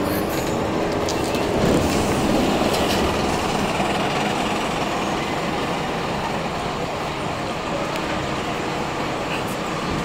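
Steady road-traffic noise, swelling briefly about two seconds in as a vehicle goes by.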